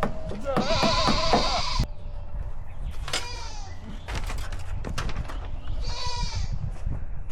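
Farm animal calls: a wavering call lasting about a second and a half near the start, then two shorter falling calls, over a steady low rumble.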